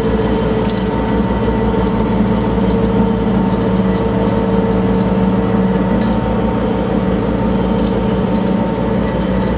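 A ferry's engine running steadily, a constant loud drone with a steady hum that does not change.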